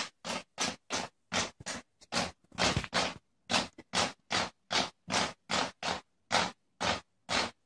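A cat clawing at a wall surface: a steady run of short, rasping scratch strokes, about three a second.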